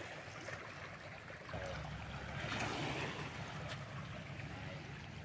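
Faint sea waves washing on the shore, swelling a little about two and a half seconds in. Wind rumbles on the microphone from about a second and a half in.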